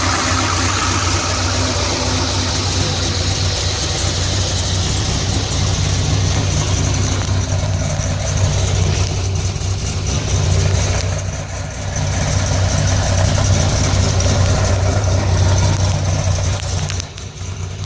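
Corvette LS2 6.0-litre V8 with a newly installed aftermarket camshaft, running at a steady idle with its exhaust valves closed. The idle sounds mild, not too radical.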